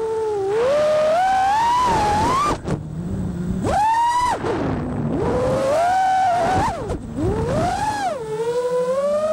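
FPV freestyle quadcopter's XING2 2306 1755KV brushless motors and props whining, the pitch swooping up and down with the throttle. The whine drops sharply several times, about two and a half seconds in and again near seven seconds, as the throttle is cut for flips and dives, then climbs quickly as the throttle is punched back up.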